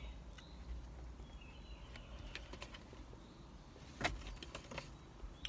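Quiet inside a parked car: a low steady rumble with a few soft clicks and knocks, the loudest about four seconds in.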